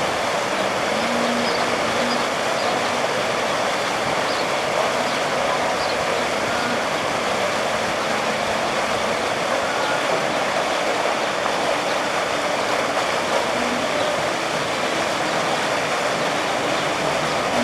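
Steady rush of water pouring out of a hydroslide into the pool, an even hiss that stays level throughout, with faint distant voices.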